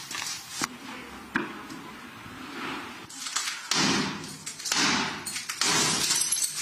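Clatter and scraping of debris and broken glass being handled. There is a sharp knock about a second and a half in, then three louder scraping bursts in the second half.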